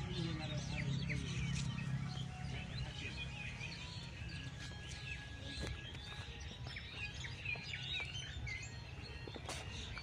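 A dense chorus of many small birds chirping and calling over one another, with a steady low hum of background noise underneath.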